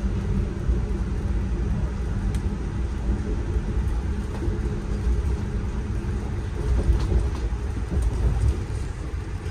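Steady low rumble of a moving passenger train heard from inside the coach, its wheels running over the rails, with a few faint clicks over it.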